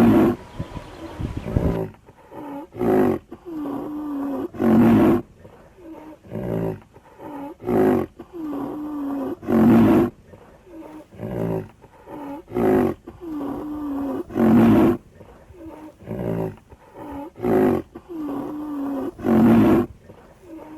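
Lion roaring: a long series of short, loud calls that repeat about every one to two and a half seconds, often in pairs.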